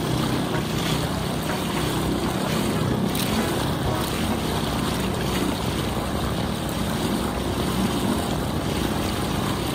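Motorboat running steadily under way, its engine noise mixed with wind on the microphone.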